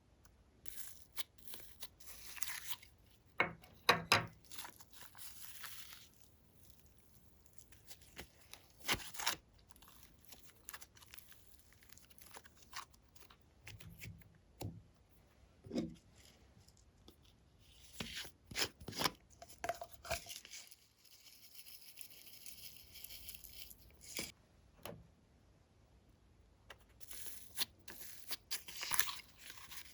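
Hands stretching, folding and squishing glossy slime, giving irregular sticky crackles, pops and tearing sounds.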